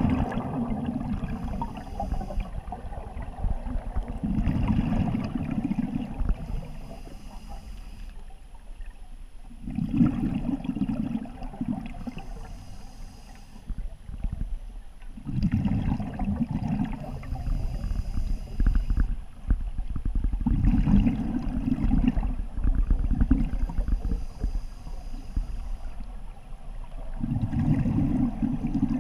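A scuba diver breathing through an open-circuit regulator. Each exhalation comes out as a loud, low bubbling burble about every five to six seconds, and the inhalations between them are short, faint hisses.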